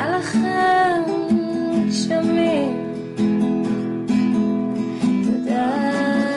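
Acoustic guitar strumming chords in a steady rhythm, with a voice singing a melody over it in short phrases.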